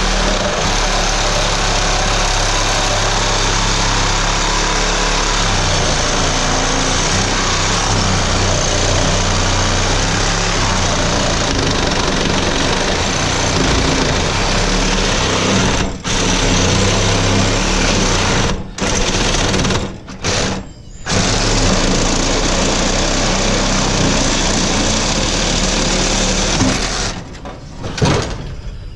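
Reciprocating saw with a Diablo blade cutting through tractor steel, running steadily with short pauses about halfway through and stopping near the end.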